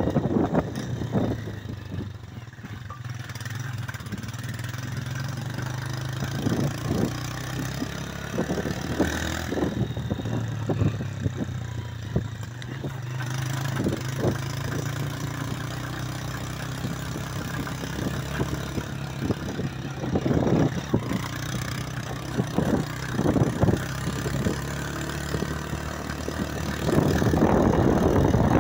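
Small motorcycle engine running at low revs, a steady low hum, with scattered knocks and rattles from riding a rough dirt track; it gets louder near the end.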